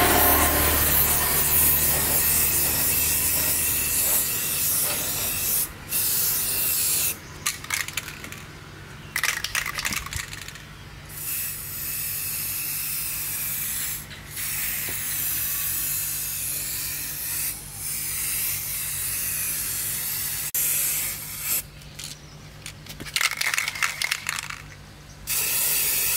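Compressed-air spray gun hissing in repeated bursts of a few seconds each, with short breaks between, over a steady low motor hum.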